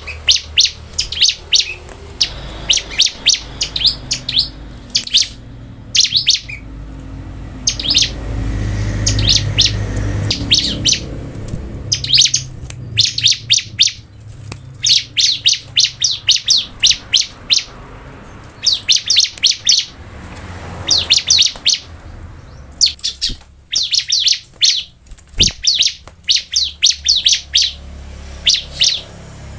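Bar-winged prinia (ciblek) singing: phrase after phrase of rapid, high, sharp chirps, each burst under a second, with short pauses between. A low rumble rises in the background about eight to eleven seconds in.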